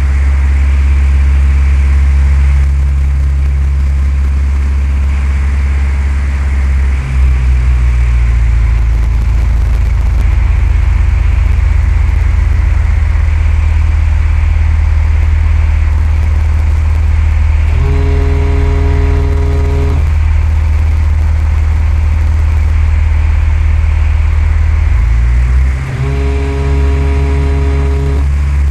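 Cessna 172's piston engine and propeller running steadily, its note shifting about seven seconds in and again near the end. A steady buzzing tone sounds twice, about two seconds each, in the second half.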